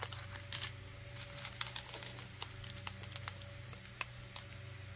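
Faint, irregular light clicks and rattles of small plastic bags of diamond painting drills being handled and sorted, over a steady low hum.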